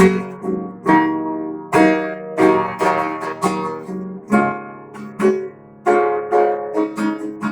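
Acoustic guitar strummed in a steady rhythm, about one or two strums a second, each chord ringing out and fading: an instrumental break between sung verses.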